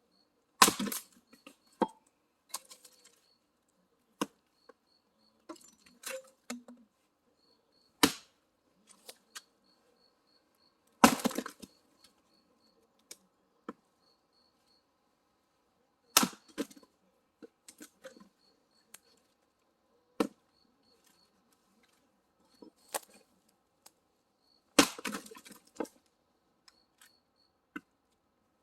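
Firewood being split by hand: loud sharp cracks of wood struck and splitting every few seconds, five strongest, with smaller knocks and clatter of split pieces between.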